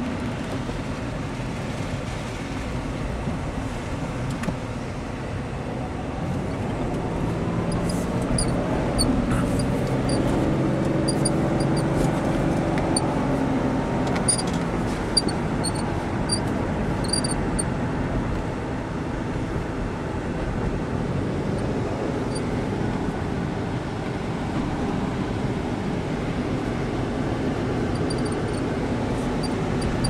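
Engine and tyre noise heard inside a moving car's cabin, steady, with the engine note rising for several seconds midway as the car picks up speed.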